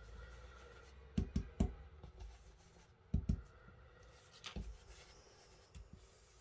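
Soft brushing and a few light knocks from a round ink blending brush being loaded on a Distress Oxide ink pad and worked over card: two pairs of knocks, then one more about halfway through.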